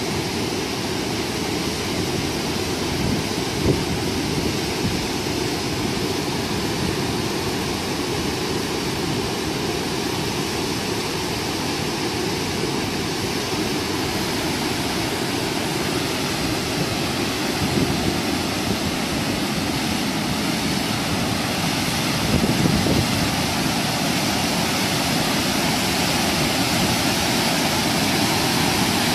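Steady rush of muddy water pouring through a weir's spillway between concrete piers and churning into foam, a little louder in the last several seconds.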